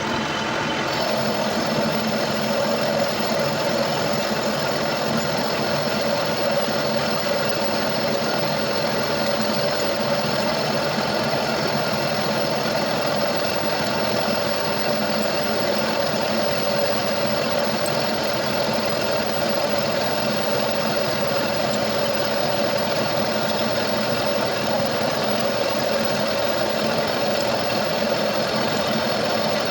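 Metal lathe running steadily, a constant machine hum with a few steady whining tones.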